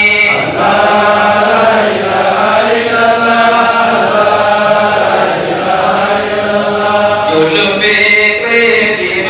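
A man's voice singing an Islamic devotional chant through a microphone, in long, drawn-out melodic lines with held, wavering notes.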